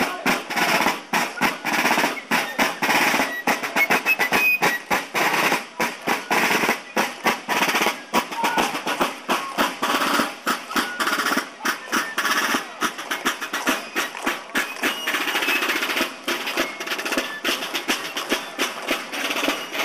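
Snare drums playing a quick marching beat with rolls.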